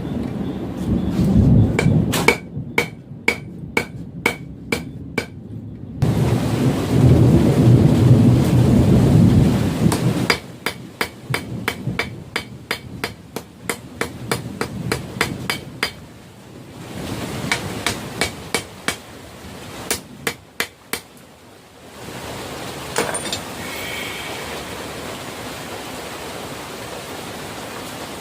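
Hammer blows on hot steel over an anvil, in three runs of ringing strikes at about three a second. Heavy rumbles of thunder come at the start and about six seconds in, with a steady hiss of rain behind.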